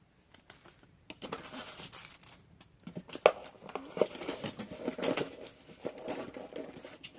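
Packaging crinkling and rustling as it is handled and pulled at, with irregular sharp clicks; it starts about a second in, and the loudest click comes about three seconds in.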